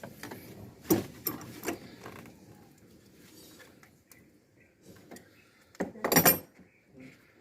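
Hand tools and metal car parts knocking and clinking during work in an engine bay. A few sharp knocks about a second in, then a louder clatter lasting about half a second near the end.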